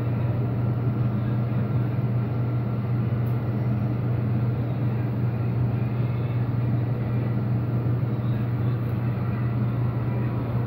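Model freight train of refrigerator cars running past on the layout: a steady low hum with an even rolling noise.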